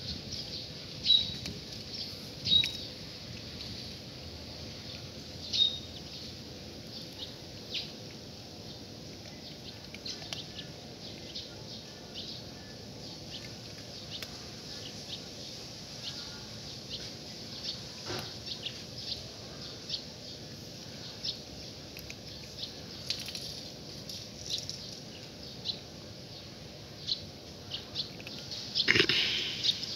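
Two cats crunching dry kibble, heard as many short ticks throughout, with birds chirping in the background, a few clear chirps in the first six seconds. A louder, fuller sound about a second before the end.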